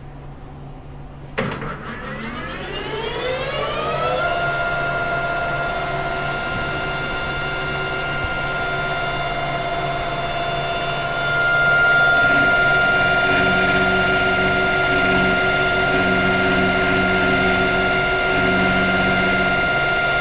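Metal lathe switched on with a click, its motor and gear train whining up in pitch over about three seconds and then running at a steady speed. From about halfway through it gets louder and rougher as the tool cuts into a hardened steel hex bolt held in the chuck, turning off the hex head.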